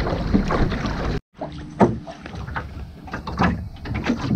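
Water slapping and lapping against the hull of a small sailing boat under way, with wind rumbling on the microphone. The sound cuts out for a moment about a second in and comes back quieter, with irregular splashes against the hull.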